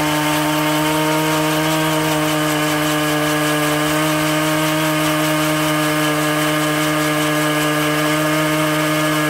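Gas-powered two-person earth auger's small engine running steadily at high speed as its spiral bit bores a post hole into the ground.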